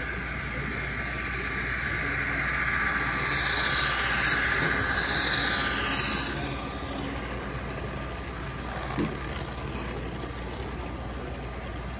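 Model freight train of double-stack container cars rolling past on a curved track, a steady rolling hiss from the wheels on the rails that swells to its loudest about four to six seconds in as the cars pass closest, then drops back to a steady background hum. A single sharp click comes about nine seconds in.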